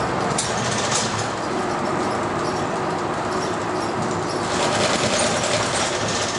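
Cabin noise of a city bus under way: engine and road noise with body rattle. A faint steady whine runs for a few seconds in the middle, and a brighter hiss comes up from about four and a half seconds in.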